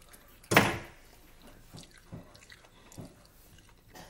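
Mouth sounds of eating stewed chicken feet: biting and chewing, with one loud, sharp sound about half a second in that fades quickly, then a few softer short mouth noises.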